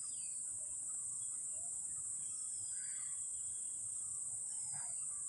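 Steady high-pitched insect chorus of crickets. A bird gives short falling whistles three times, about two seconds apart.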